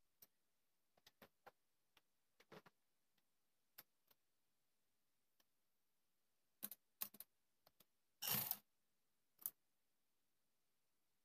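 Near silence broken by scattered faint clicks and handling noises as fabric is arranged under a sewing machine's presser foot, with one short, louder noise a little past eight seconds in. The sewing machine is not running.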